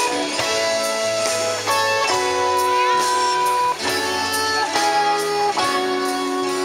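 Guitar music, plucked and strummed notes with some held for a second or more.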